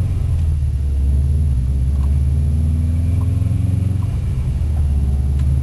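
Subaru Impreza STI's turbocharged flat-four engine running steadily at low revs while cruising in gear, with road noise, heard from inside the cabin as a low rumble.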